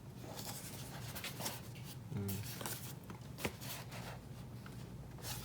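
Cardboard phone box handled in the hands: light rubbing and small scattered taps and clicks as it is turned over, over a low steady hum.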